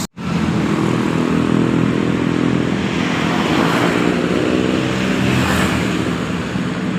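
An intercity coach's diesel engine running steadily, a low even hum.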